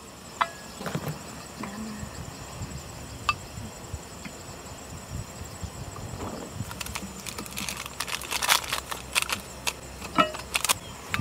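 Intermittent clinks and knocks of a cooking pot and utensils, scattered thinly at first and then in a busier cluster of clatter about seven to nine seconds in and again near the end.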